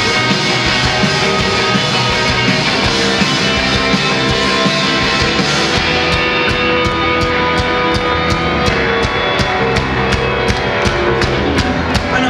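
Live rock band playing loud: electric guitars, keyboard and drum kit. About halfway through, the top end thins and a steady drum beat of about four strokes a second stands out.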